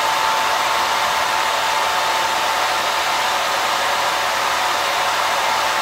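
PWM-controlled cooling fan on an NVIDIA Tesla K80 card, blowing at about two-thirds speed. Its speed is set by an Arduino controller from a temperature sensor reading about 50 °C. It makes a steady, loud rush of air with a thin steady whine in it.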